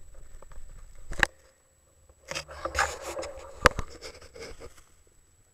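Handling noise on a handlebar-mounted action camera: gloved hands rubbing and scraping against the camera and its mount, with two sharp knocks, about a second in and again past the middle.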